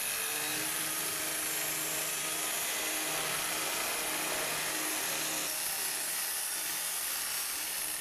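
Electric power tool running steadily: a dense high hiss over a low motor hum that holds its pitch.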